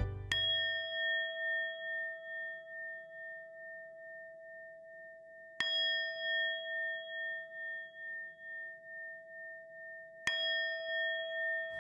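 A bell-like chime is struck three times, about five seconds apart. Each strike rings on with a slow, pulsing waver until the next.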